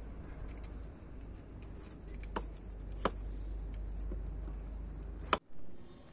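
Kitchen knife cutting raw potato on a wooden cutting board: three sharp knocks of the blade on the board, the last the loudest, over a steady low rumble.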